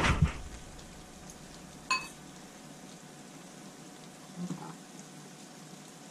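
A pot of goulash simmering on the stove, a faint steady bubbling hiss. About two seconds in, a single sharp metallic clink of a utensil against the pot.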